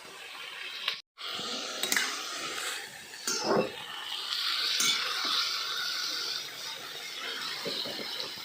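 Cooking at a pot: a few knocks of a utensil against the pan, the loudest about three and a half seconds in, and a steady hiss that sets in midway and fades after a few seconds.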